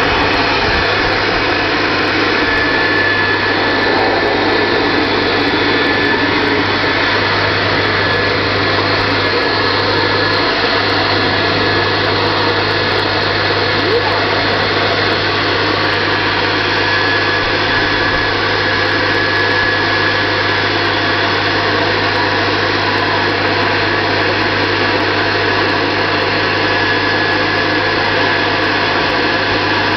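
Electric air blower running steadily, inflating a water-walking ball through its zip opening: a constant motor noise with a low hum that does not change.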